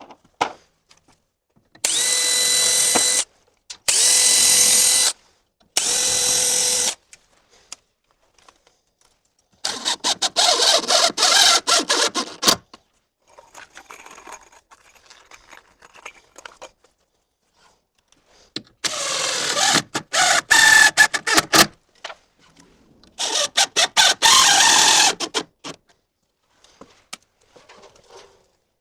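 Cordless drill driving long stainless screws into door hinges in several short runs: three brief steady whines early on, then longer, rougher runs as screws bite in, with pauses between them.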